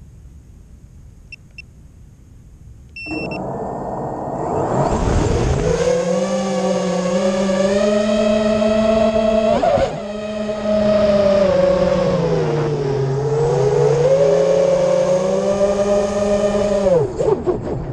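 Eachine Wizard X220 FPV quadcopter's brushless motors and propellers, heard from its onboard camera. After a few short electronic beeps, the motors spin up about three seconds in to a loud, steady buzzing whine. The pitch rises and falls with the throttle in flight, dips twice, and drops away near the end.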